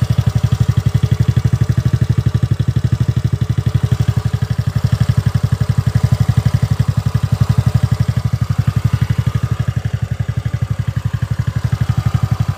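TVS Ntorq 125 scooter's single-cylinder four-stroke engine idling steadily, heard at the exhaust as a rapid, even beat.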